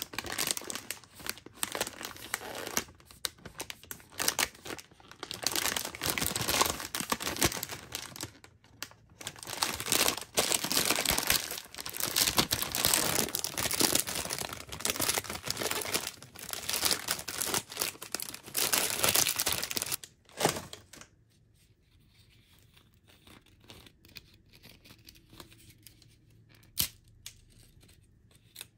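Crinkly plastic wrapper of a pack of puffed-rice rolls being handled and torn open: loud, dense crinkling and tearing for about twenty seconds, then dying down to faint rustles and a couple of light clicks.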